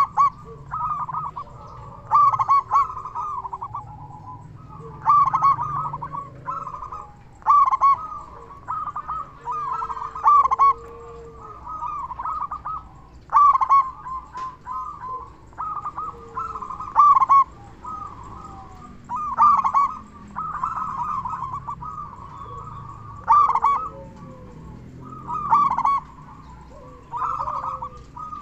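Zebra dove singing: repeated short bursts of rapid cooing notes, one every second or two.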